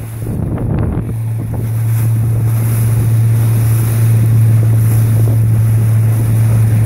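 A RIB's engine drones steadily under way as a constant low hum that grows louder over the first couple of seconds, mixed with water rushing past the hull and wind buffeting the microphone.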